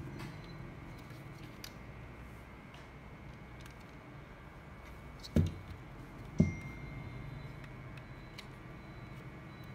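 Two dull knocks about a second apart, a little past halfway, as the plastic speaker housing is handled and bumped during disassembly, with a few faint clicks over a low steady hum.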